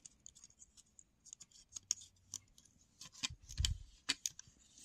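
Light clicks and taps of plastic parts being handled, from the opened Lyft sign's housing and circuit board. A cluster of louder knocks comes about three to four seconds in.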